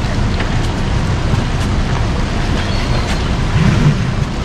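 Outboard motor running steadily at low speed, held in reverse against the anchor, a constant low rumble. A few faint ticks ride over it as the cast net's line is hauled in.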